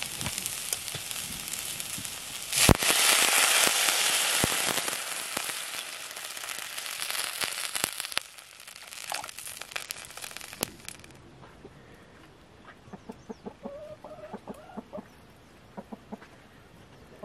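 Greens frying in a hot wok, crackling. About three seconds in, water hits the pan with a sudden loud hiss that fades over the next several seconds. Near the end a chicken clucks a few times.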